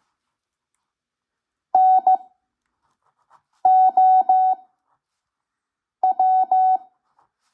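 Morse code (CW) practice tones from an ARRL code practice recording: a steady beep keyed into dots and dashes, three letters spaced about two seconds apart with long gaps between them, as sent for slow-speed practice.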